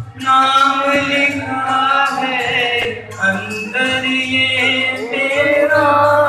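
A man singing into a handheld microphone, holding long wavering notes with short breaks between phrases, over a steady low background tone.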